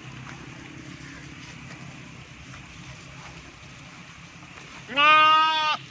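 A lamb bleats once, a single steady baa lasting just under a second near the end, over a low steady background hum.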